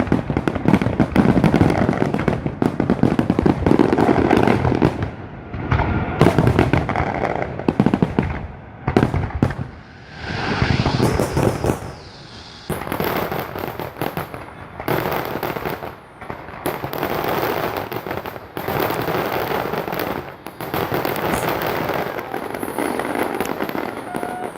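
Fireworks display: aerial shell bursts go off in quick succession for the first several seconds. Later comes a steadier stretch of dense crackling and hiss.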